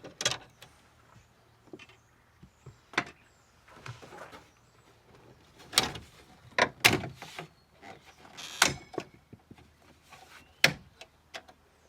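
Scattered sharp clicks and knocks from hands and tools working on a car tailgate's clipped plastic interior trim, with one short scrape about two thirds of the way through.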